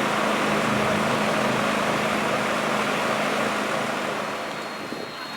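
Steady mechanical running noise from a motor-driven machine, with a low hum that fades out partway through and the overall level easing off near the end.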